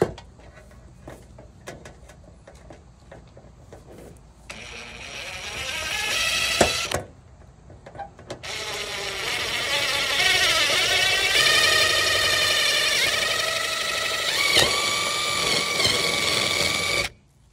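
DeWalt cordless drill boring rivet holes through two overlapped copper gutter sections. A short run of about two and a half seconds, then after a brief pause a longer run of about eight seconds whose whine wavers in pitch partway through before holding steady.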